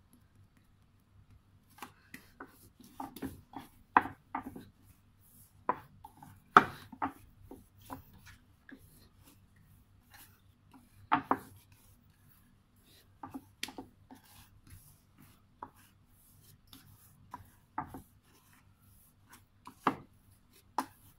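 Hands kneading a ball of yeast bun dough on a wooden board: irregular knocks and thumps of dough and hands against the board, a few of them louder.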